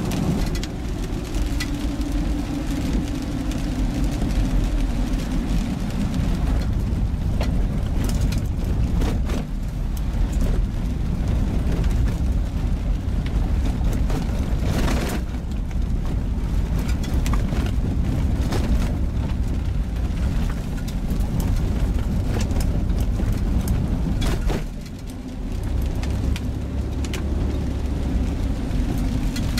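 Car engine and tyre noise heard from inside the cabin while driving on a wet, rough forest road: a steady low rumble with frequent scattered knocks and clicks. It briefly drops in level about 25 seconds in.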